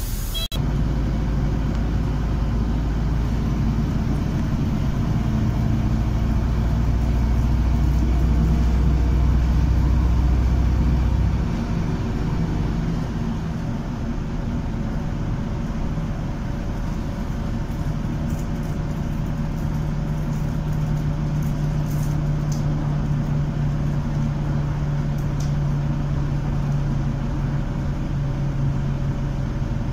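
Cabin noise of a moving city bus: a steady engine drone with road and rattle noise. The low drone shifts down about eleven seconds in, and a higher hum comes in from about eighteen seconds.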